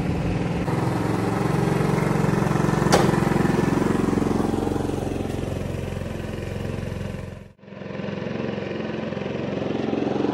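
Vitacci Rocket's 150cc GY6 single-cylinder four-stroke engine running steadily on fresh oil. After a cut about three-quarters through, the engine grows louder as the bike rides past.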